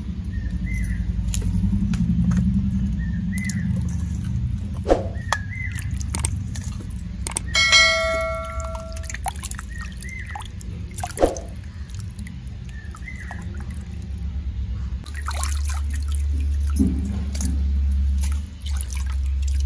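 Raw chicken pieces being washed by hand in a steel bowl of water: splashing, sloshing and handling clicks. About eight seconds in, a steel bowl is knocked and rings once with a clear metallic tone for about a second.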